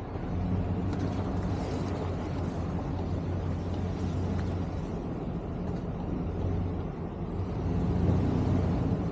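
Plow truck's engine running steadily with a low drone, a little louder near the end.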